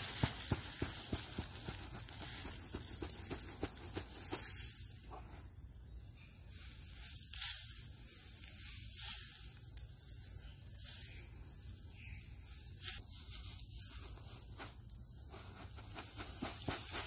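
Shredded leaves pouring out of a leaf vacuum's cloth collection bag and rustling onto the ground as the bag is shaken. A steady soft hiss with dense pattering in the first few seconds, then a few louder rustles.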